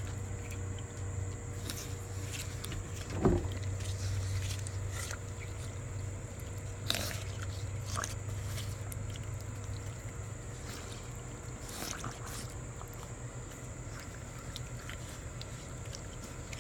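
Fawns biting and chewing watermelon: scattered wet crunches and smacks, over a steady low hum that fades out about ten seconds in. One short, sharp sound stands out about three seconds in.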